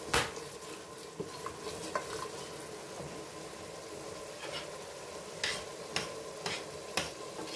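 Wooden spoon stirring pasta in a thin tomato sauce in a stainless steel pot, the sauce simmering with a light sizzle. A few sharp knocks and clicks come as the spoon and the pans are handled.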